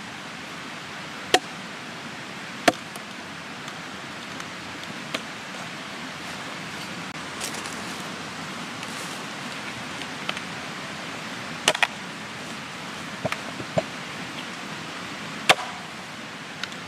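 Irregular sharp knocks of blows splitting a knotty wild cherry log, some in quick pairs, over a steady background hiss.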